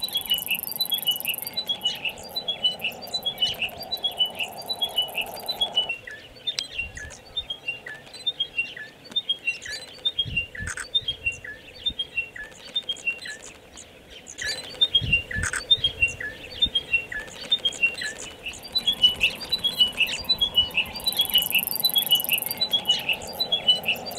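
Chiming wedgebill singing: a phrase of short, clear notes stepping down in pitch, repeated over and over without pause.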